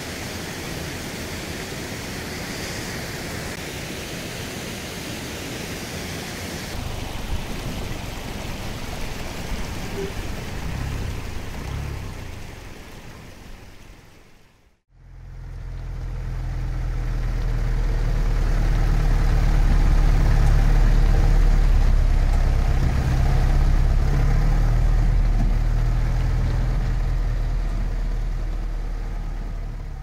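Waterfall rushing as a steady wash of noise; a low rumble joins about seven seconds in. About halfway through the sound fades out and is replaced by a louder vehicle engine running steadily with a deep hum, heard from inside the cab.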